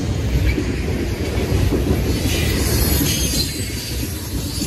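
Freight train of tank cars and boxcars rolling past, a steady low rumble with the wheels clattering over the rails.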